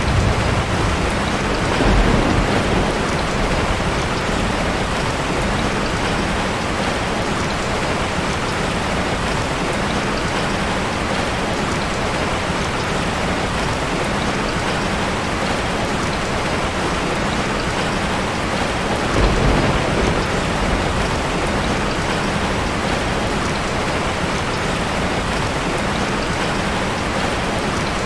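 Heavy rain falling steadily, with distant thunder rumbling twice, about two seconds in and again past the middle.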